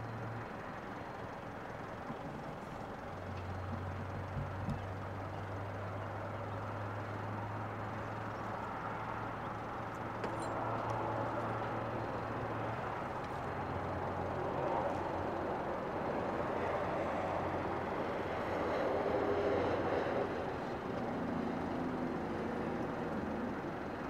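Diesel-electric locomotives of an approaching freight train heard from a distance: a steady low engine hum over a broad outdoor rumble.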